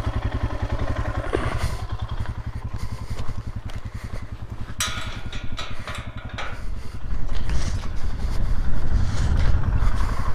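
Royal Enfield Himalayan's single-cylinder engine idling steadily, with sharp metallic clanks of a steel farm gate's latch being worked about five seconds in.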